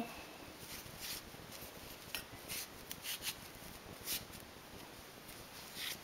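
Faint rustling of a knitted tea cosy and its yarn being handled by hand, a handful of brief swishes scattered through.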